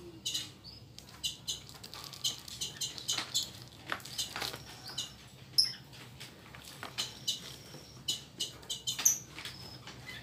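Plastic packaging crinkling and rustling as a boxed gimbal is handled and turned over: many small irregular crackles and light taps.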